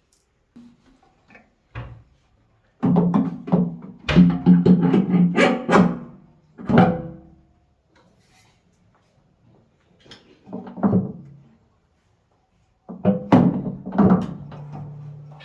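Music, apparently plucked strings, playing in short phrases that stop for silent gaps of a few seconds.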